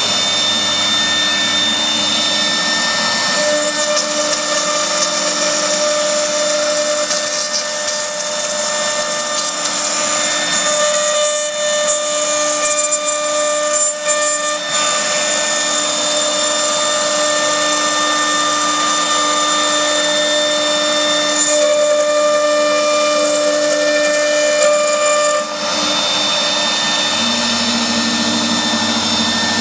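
CNC router spindle running at high speed and cutting, a steady high whine with a hissing cutting noise that shifts in character several times as the tool moves through the work.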